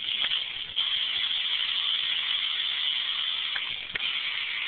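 Upgraded XMODS Pontiac Firebird RC car's small electric motor and gears running at speed: a steady high whine, with a brief dip near the start and another near the end.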